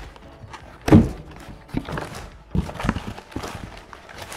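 Cardboard shoebox being opened and handled on a table: a series of light knocks and thumps, the loudest about a second in.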